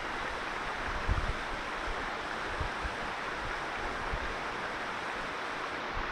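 Steady rush of a shallow mountain stream running over rocks, with low bumps of wind buffeting the microphone, the strongest about a second in.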